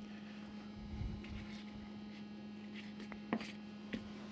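Steady mains hum under quiet handling noises of a knife trimming fat from a raw pork shoulder on paper, with two short sharp taps near the end.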